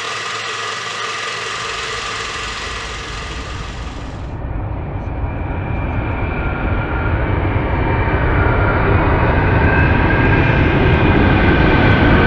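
Robinson R44 helicopter engine and rotor noise, a steady mechanical drone with a few held tones. About four seconds in it turns duller, then grows steadily louder.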